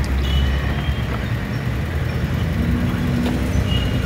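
Car engine and road noise heard from inside the cabin while driving, a steady low rumble. A steady hum comes in about two and a half seconds in.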